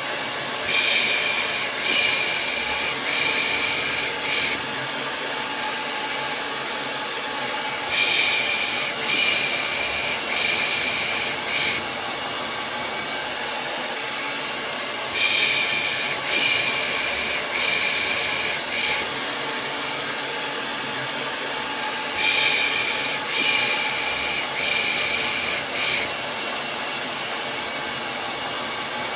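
Hair dryer running steadily, overlaid with soft 'pış pış' shushes made to soothe a baby. The shushes come in groups of four, about one a second, with a new group roughly every seven seconds: about a second in, then near 8, 15 and 22 seconds.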